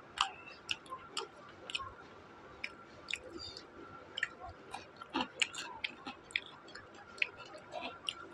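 Close, wet chewing and mouth clicks of a man eating rice and rajma by hand: a string of irregular short, sharp clicks, with a faint steady tone underneath.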